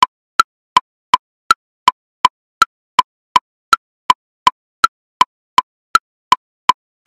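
Metronome at 54 BPM subdividing each beat into triplets: a high woodblock click on each beat followed by two lower woodblock clicks, a steady run of about three clicks a beat.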